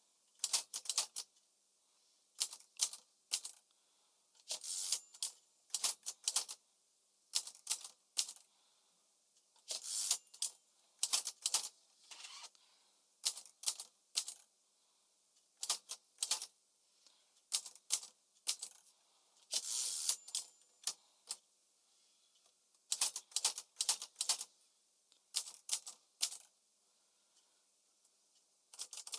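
Smith-Corona Calypso manual typewriter being typed on: short runs of sharp key strikes broken by pauses of a second or more.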